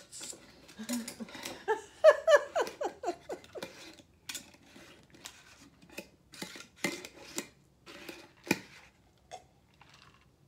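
Drinkware being handled: sharp clinks and knocks of a tumbler with ice and a glass jar, scattered a second or two apart, the loudest about seven and eight and a half seconds in.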